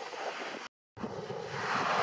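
Steady rushing of heavy rain and wind buffeting the microphone. A little under a second in, the sound drops out to dead silence for about a quarter of a second, then resumes.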